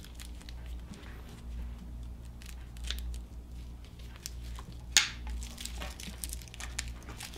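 Heavy cable cutters crunching through thick 1-gauge copper welding cable to cut off a battery terminal, with scattered clicks as the strands give and one sharp snap about five seconds in.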